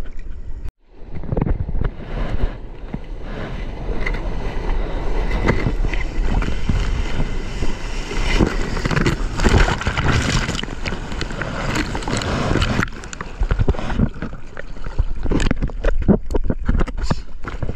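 Sea water rushing and splashing against a GoPro at water level on a bodyboard, with wind buffeting the microphone and a brief break in the sound just under a second in.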